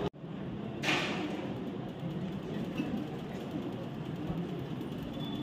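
Steady room tone of a large hall: an even low hum and hiss with no clear voices, cutting in after a brief dropout, with a short hiss about a second in.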